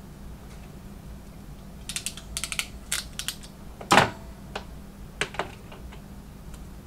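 Small clicks and taps from hands working crimp terminals and a crimping tool, in an uneven cluster, with one sharper knock about four seconds in.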